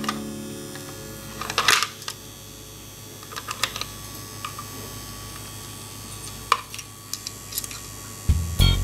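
Plastic toy parts being handled: scattered small clicks and rustles as a Playmobil rescue boat and its diver figure are picked up and moved, over a steady low hum. Music starts near the end.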